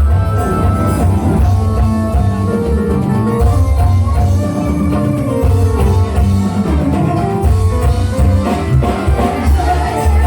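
Live dangdut band music at full volume: an instrumental passage with guitar and drums over a heavy, pulsing bass beat.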